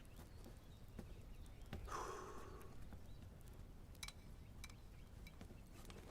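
Soft, irregular footsteps and small knocks against a quiet room hush, with one brief louder sound about two seconds in.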